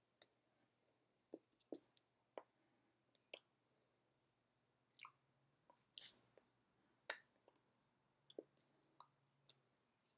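Faint, irregular taps and slaps of hands striking each other and the body during sign language, about fifteen sharp clicks in ten seconds, the loudest about six seconds in, over near-silent room tone.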